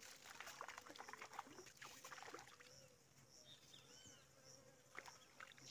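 Faint sounds: an insect buzzing with a thin, wavering drone, over scattered light clicks and small splashes as a hooked fish is drawn into a landing net.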